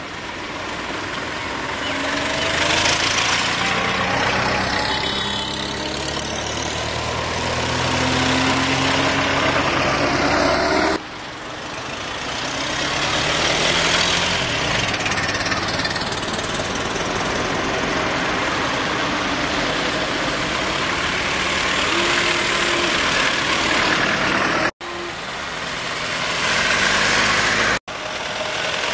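Ford Model T four-cylinder side-valve engines running as the cars drive past one after another. The sound swells and fades as each car approaches and goes by, and it breaks off abruptly a few times.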